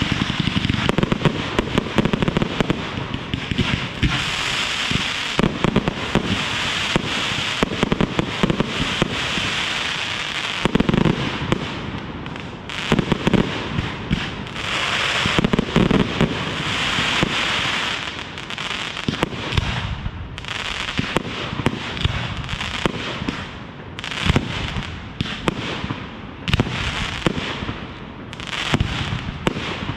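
Aerial fireworks display: a dense run of shell bursts, with rapid bangs and crackling over a continuous hiss. In the last third the bangs thin out to separate reports with quieter gaps between them.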